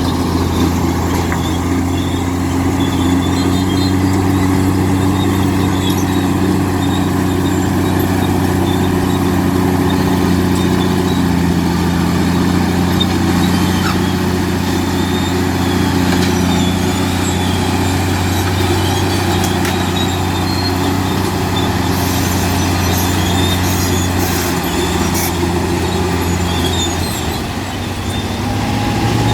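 Diesel engine of a Komatsu D65P bulldozer running steadily under load while it pushes and spreads stone, with a few faint clicks late on and a brief drop in engine level near the end.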